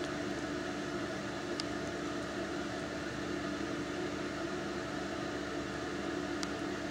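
Steady mechanical hum with a low held tone, and two faint ticks, one about a second and a half in and one near the end.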